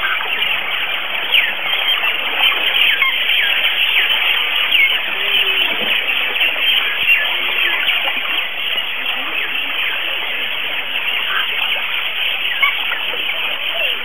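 Many birds calling at once from a waterbird nesting colony: a dense, continuous chatter of short chirps and squawks.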